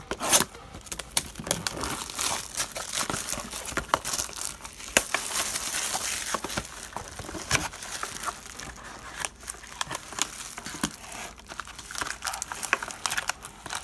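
Plastic shrink-wrap crinkling and tearing as a sealed box of football trading cards is unwrapped, with irregular crackles and cardboard handling.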